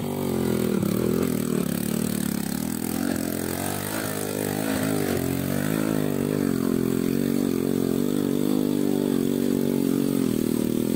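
Small motorcycle engine revving hard under load as the bike is ridden and pushed through deep mud. The pitch rises and falls in the first half, then holds steadier.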